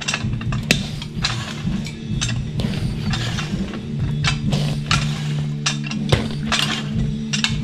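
Background music, with repeated metallic clinks and knocks from a dirt bike wheel being handled on a metal tire changing stand as the tire is centred on its rim.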